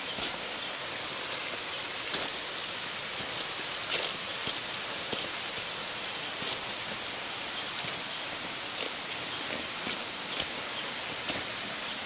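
Steady hiss of a small stream running and cascading over rocks, with a few soft footsteps on a stone path strewn with dry leaves.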